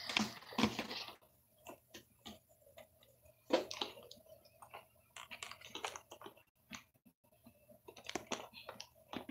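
Quiet room with scattered light clicks, taps and rustles of handling, one slightly louder rustle about three and a half seconds in; no vacuum motor is running.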